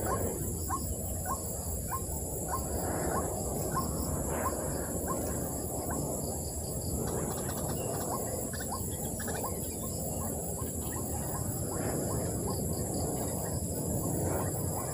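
A bird calling in a quick series of short, repeated chirps, about three a second, fading after the first half. Behind it run a steady high insect drone and a rustling noise.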